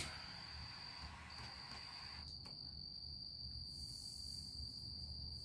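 Insects trilling in one steady, unbroken high-pitched tone, with a soft hiss over the first two seconds and a faint click a little past two seconds in.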